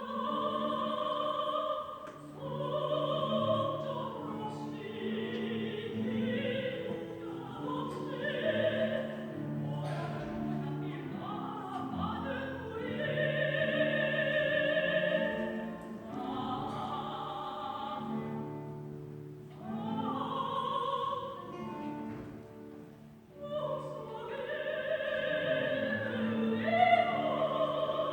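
A soprano sings long held notes in phrases, with short breaths between them, over a large guitar orchestra's accompaniment.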